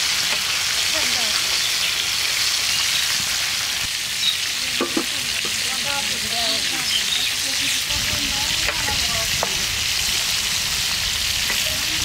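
Pieces of black pomfret deep-frying in hot oil in a large karai: a steady, dense sizzle. A metal spatula scrapes and knocks against the fish and pan a few times.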